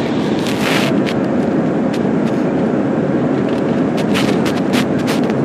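Steady, loud airliner cabin noise: the low rush of the engines and airflow heard from a passenger seat. Brief clicks and rattles come about half a second in and again in a cluster around four to five seconds in.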